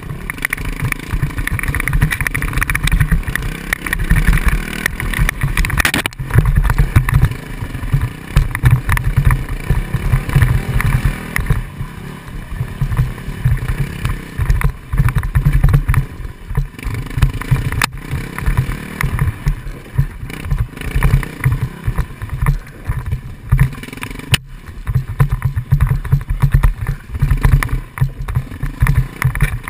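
Enduro motorcycle engine running at changing throttle on a rough, rocky downhill trail, heard from the bike itself, with its loudness jumping up and down over the bumps. A few sharp knocks come from the bike hitting rocks, about six seconds in, near the middle and again past three-quarters.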